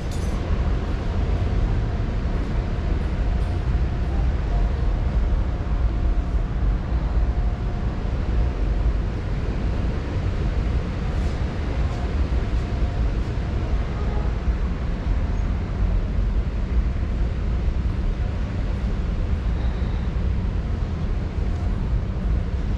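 Steady low rumble of background noise in a large warehouse-style store, with no distinct events standing out.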